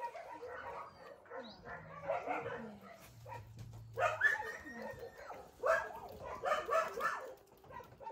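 A group of young puppies yapping and yipping over one another as they play, louder about four seconds in and again from about five and a half to seven seconds.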